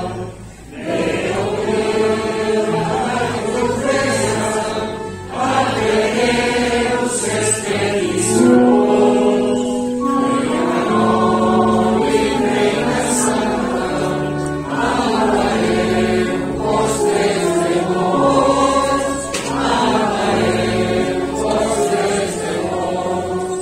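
Choir singing the goigs, a Catalan hymn in honour of the Virgin, in sung phrases of a few seconds with short breaks between them.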